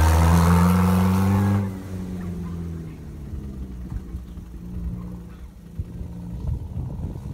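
Car engine revving hard at a steady high note, then dropping off sharply about a second and a half in to a lower, uneven rumble with scattered thumps.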